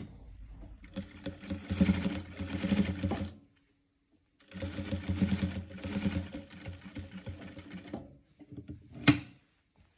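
Jack industrial sewing machine stitching through thick plush fur fabric in two runs, pausing briefly about three and a half seconds in and stopping about eight seconds in. A single sharp click follows about a second later.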